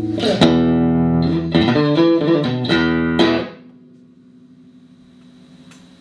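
Clean electric guitar, a Fender Stratocaster played through a Boss AW-3 Dynamic Wah and Boss CE-5 Chorus Ensemble into a stereo pair of Roland JC-120 amps: a quick run of picked chords that is cut off about three and a half seconds in, leaving a faint amplifier hum.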